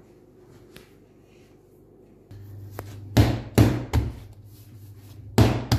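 Yeast dough being kneaded by hand on a kitchen worktop: four heavy thuds as the dough is pressed and pushed against the counter, three in quick succession about three seconds in and one more near the end.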